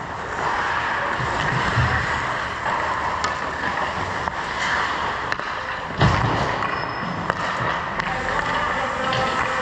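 Ice hockey play in an arena: skate blades scraping the ice and sticks and puck clicking, with a heavy thump about six seconds in.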